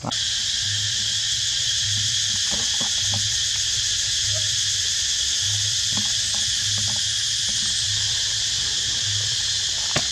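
Loud, steady insect chorus, a shrill unbroken drone of forest insects that comes in abruptly at the start.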